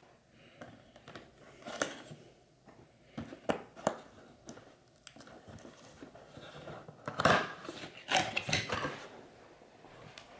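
Cardboard product box being opened by hand: the top flap is pried and slid open, giving scattered clicks and scrapes. A busier stretch of rustling and scraping comes about seven seconds in.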